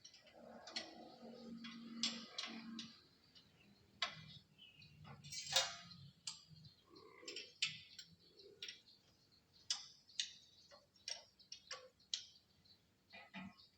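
Irregular sharp clicks and light taps, like metal parts and hand tools being handled during maintenance of a planer. There is a louder scraping burst about five and a half seconds in.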